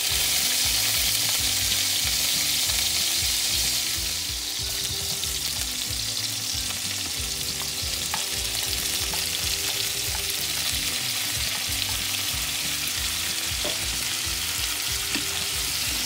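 Diced garlic and ginger sizzling in hot oil in a frying pan as green chillies and chopped onions are tipped in and stirred with a wooden spatula. The sizzle is steady and drops slightly after about four seconds.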